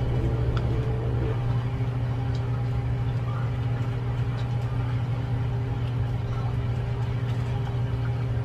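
Steady low motor or fan hum, with a few faint clicks of a metal ladle against the pan as soup and vegetables are stirred.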